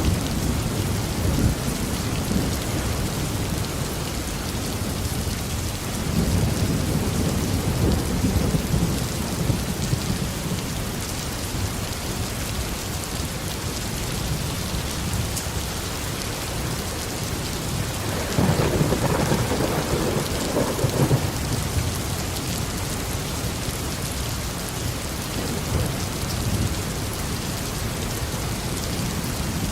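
Heavy tropical rain falling steadily, with thunder rolling in low swells, the loudest clap about two-thirds of the way through.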